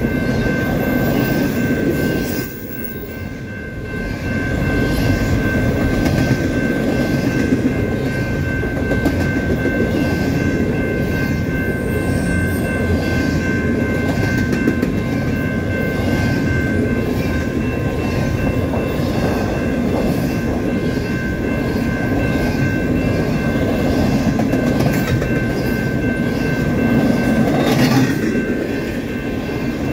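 Double-stack container train rolling past at speed: a steady rumble with the clickety-clack of wheels over the rails. The crossing's GS Type 2 electronic bell rings over it.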